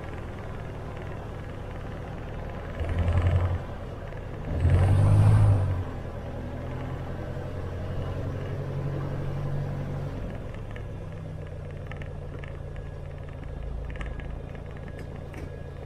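Robin DR400 light aircraft's piston engine running at low power while taxiing, with two short bursts of throttle about three and five seconds in. It then settles to a steady idle, with faint rattling ticks over the last few seconds.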